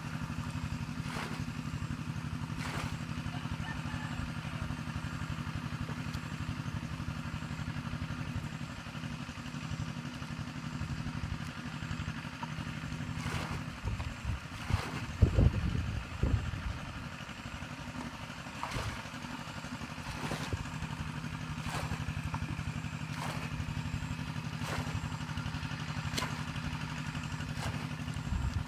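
Plastic bucket scooping and throwing out muddy water, a splash about every second and a half, with a louder, rougher stretch about halfway through. Under it runs a steady low hum like a small motor.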